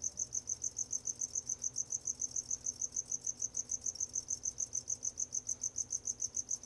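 Crickets chirping: a fast, even run of high-pitched chirps, about eight a second.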